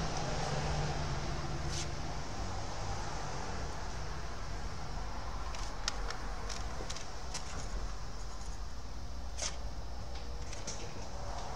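A 1988 Magnavox CDB582 CD player's disc mechanism trying to play a disc: a low hum for the first few seconds over a steady background, with scattered light clicks.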